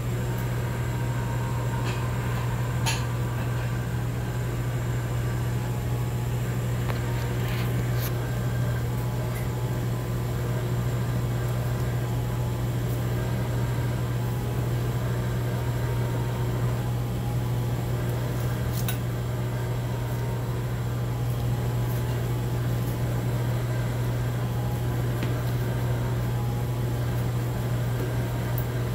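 Steady low hum of running kitchen machinery, with a few faint knife taps on a plastic cutting board while a raw chicken is being cut up.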